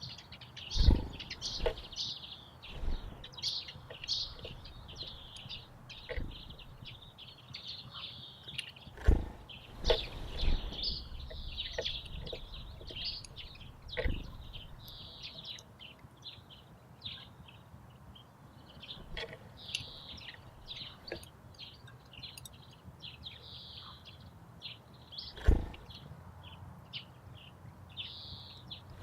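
Small garden songbirds chirping and trilling almost without a break, with a few sharp knocks cutting in, the loudest about a second in, around 9 s and near 25 s.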